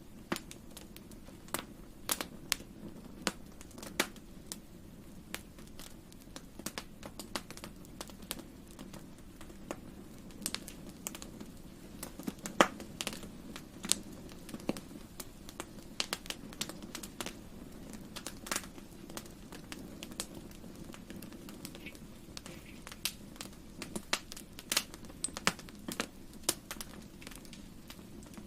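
Wood fire in a fireplace crackling: irregular sharp pops and snaps, several a second, over a steady low rumble, with one louder pop about halfway through.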